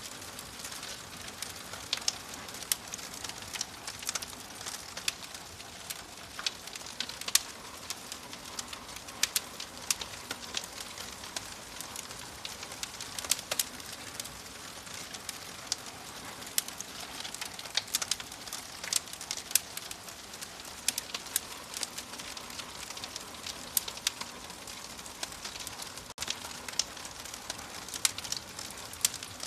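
Wood fire in a fireplace crackling: irregular sharp pops and snaps over a soft steady hiss.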